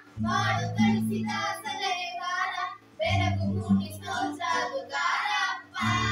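A girl and women singing a song together in short phrases over a steady musical backing, with brief pauses between phrases about three seconds in and near the end.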